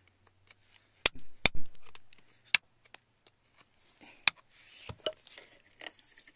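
A metal pick tapping and scraping against rock around an agate nodule: a few sharp clicks, the loudest about a second and a half in. From about four seconds in, a jet of water hisses onto the stone, washing it.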